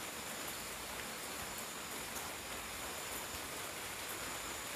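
Steady, even hiss of outdoor night ambience, with a faint high thin steady tone running under it.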